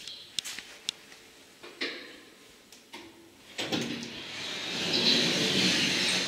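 Schindler lift's automatic sliding landing doors opening as the car arrives: a swelling sliding rush about three and a half seconds in, after a few light clicks.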